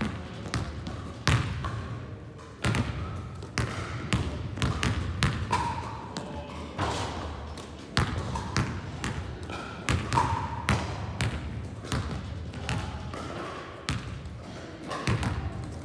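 Basketballs bouncing on a sports-hall floor: irregular dribbles, thuds and rim or backboard knocks, each echoing in the large hall.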